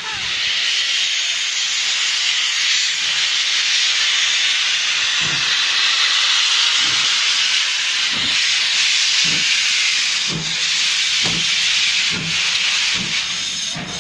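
Steam locomotive 6960 Raveningham Hall, a GWR Modified Hall 4-6-0, starting away: a loud, steady hiss of steam from its open cylinder drain cocks, with deep exhaust beats coming in about five seconds in and quickening as it gathers speed.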